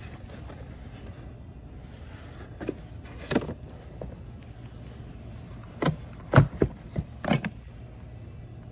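Boxed grill tool sets being handled and taken off a pegboard store display: several sharp knocks and clatters, the loudest about six and a half seconds in, over a steady low hum.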